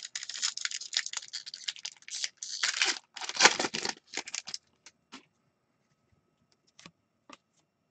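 Foil wrapper of an Upper Deck Artifacts hockey card pack being torn open and crinkled by hand for about four and a half seconds. It is followed by a few faint clicks.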